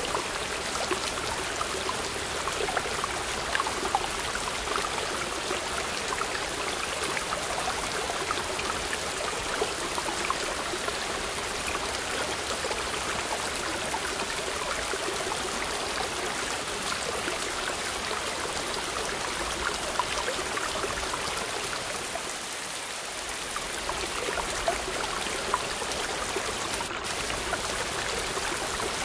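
Small waterfall pouring between boulders into a rock pool: a steady rush and splash of falling water.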